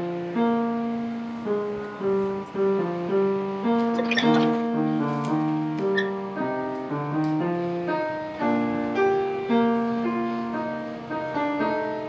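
Solo piano music from a live recital, a steady flow of notes, with the loudest chord about four seconds in.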